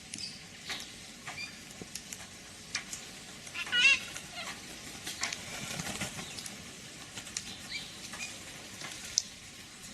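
Sulphur-crested cockatoo making scattered light clicks and taps, with one short warbling call about four seconds in.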